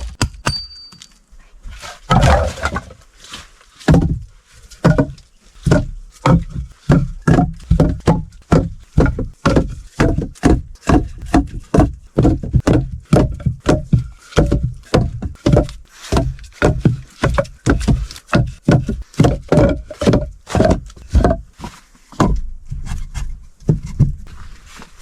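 A steady run of hard blows from a hand tool, about two a second, starting about two seconds in and stopping just before the end.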